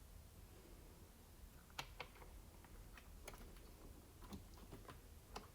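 Near silence with about ten faint, light clicks and taps, scattered from about two seconds in to near the end, as of small parts being handled.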